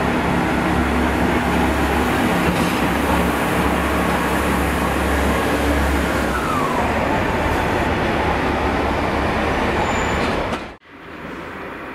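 DB Cargo freight train passing close by, its wagons running over the rails with a loud, steady rumble. Near the end the sound cuts off suddenly to a much quieter background.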